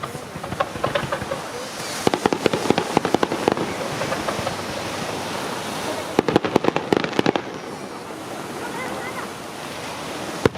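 Fireworks display: a rapid volley of crackling bangs about two seconds in, and a second volley about six seconds in, over a steady background noise, with a single sharp bang near the end.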